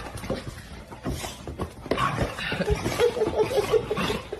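A dog giving a quick run of short, pitched yips about three seconds in.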